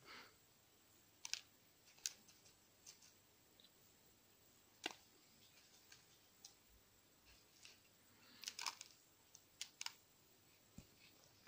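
Light, scattered clicks and taps of a fingertip on a plastic tub, irregular and well spaced, with a quick run of several clicks about eight and a half seconds in. Otherwise near silence.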